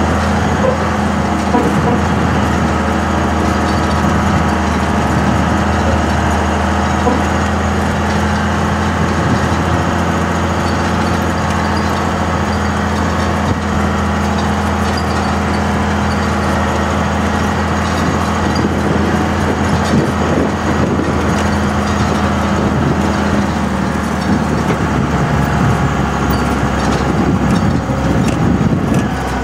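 2002 Dodge Ram's 24-valve 5.9-litre Cummins turbo diesel inline-six running steadily under load at low speed, towing a roughly 22,000 lb dozer on a trailer in two-wheel-drive low range. The engine note changes about three-quarters of the way through.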